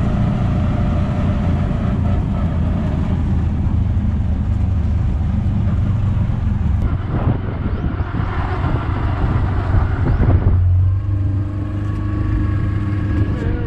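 Auto-rickshaw (tuk-tuk) engine running steadily, heard from inside the open cab with road and wind noise. About ten and a half seconds in, the sound changes abruptly to a boat's outboard motor running steadily.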